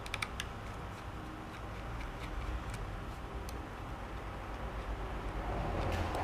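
Light clicks and taps from small laptop parts being handled: a quick cluster of several right at the start, then single ones every second or so, over a low steady hum.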